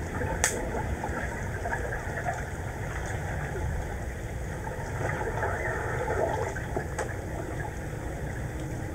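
Underwater ambience of a swimming pool picked up by a submerged camera: a steady low rumble with crackling and a couple of sharp clicks, about half a second in and near the end.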